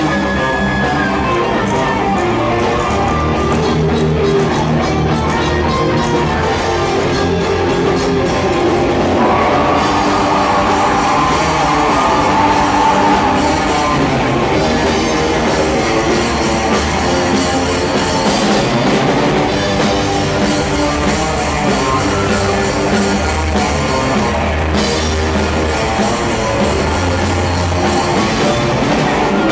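Death metal band playing live: electric guitar and drum kit, loud and steady throughout.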